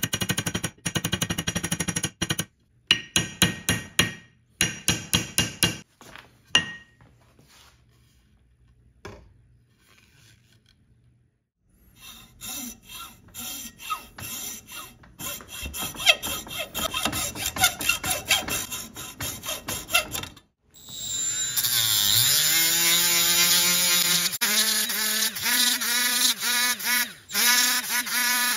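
A small hammer tapping quickly on copper pins to peen them over in a steel axe head, then rhythmic sanding of the pins and wooden inlay flush. Near the end a small rotary grinder with a sanding disc spins up with a rising whine and runs, grinding the steel.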